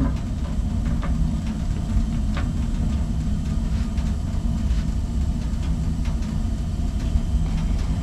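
Old Rheem gas furnace running with its burner lit, a steady low rumble with a few faint clicks. The blower fan has not yet come on, as the furnace is still heating up.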